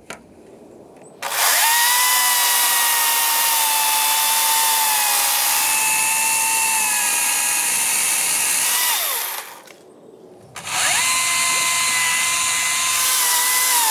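Husqvarna 536 Li XP 36-volt battery chainsaw cutting into a standing tree trunk, a steady high electric whine. It spins up about a second in, winds down with a falling pitch after about eight seconds, and after a short pause spins up and cuts again.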